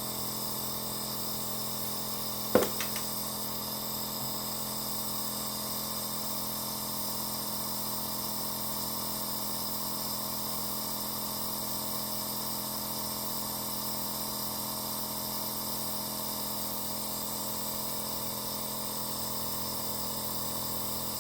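B.Well nebulizer running: a steady motor hum with an even hiss as it turns saline into mist for inhalation. A single sharp click about two and a half seconds in.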